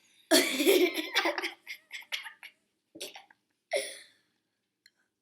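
People laughing in short bursts, loudest in the first second, then choppier laughs and a couple of brief breathy bursts further on.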